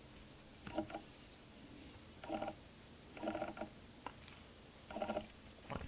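Soft handling noises from a two-blade serpentine jack pocketknife being turned over in the hands: four or five short, faint rustling scrapes spread over a few seconds.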